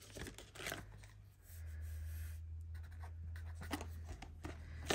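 Soft rustling, scraping and ticking of hands handling banknotes and cash envelopes, with a low steady hum coming in about a second and a half in.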